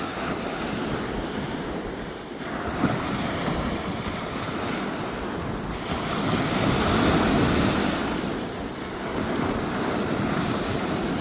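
Pacific Ocean surf breaking and washing up the sand, a steady rush that swells to its loudest about seven seconds in, with wind buffeting the microphone.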